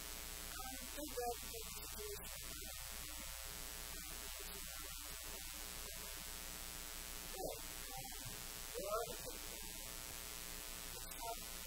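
Steady electrical hum and hiss from a quiet room recording, with a few faint, brief, indistinct sounds about a second in and twice more around seven to nine seconds in.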